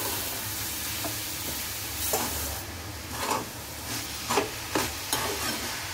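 A spatula stirring and scraping a coconut-and-jaggery modak filling in a pan, over a steady sizzle of the mixture cooking. The scrapes come irregularly, several of them in the second half.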